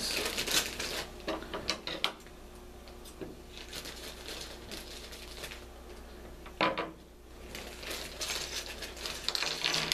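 Clear plastic parts bag being opened and handled: crinkling plastic with small loose plastic toy parts clicking inside, and one louder crinkle about two-thirds of the way through.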